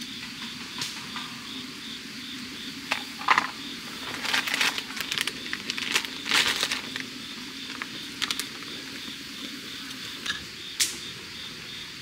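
Plastic packet of udon noodles crinkling and rustling as it is emptied into a simmering kimchi fish-cake hot pot, a cluster of crackly rustles in the middle, then a few light clicks of metal tongs against the pan near the end. Insects chirp steadily underneath.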